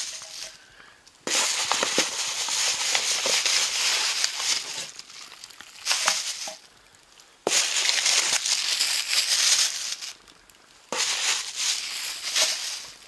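Plastic wrapping and bags crinkling and rustling as they are handled, in several stretches with short quiet pauses between.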